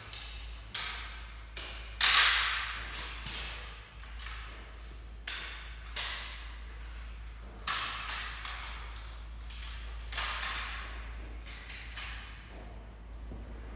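A long-handled tool working a tiled floor: irregular sharp strokes, about one every second or two, each fading off with an echo. The loudest comes about two seconds in. A steady low hum runs underneath.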